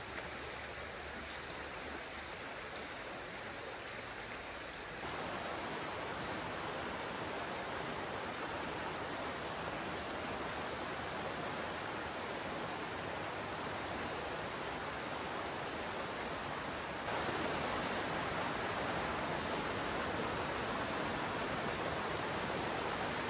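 Steady rush of a fast-flowing stream, an even hiss of running water. It jumps louder abruptly about five seconds in and again about seventeen seconds in.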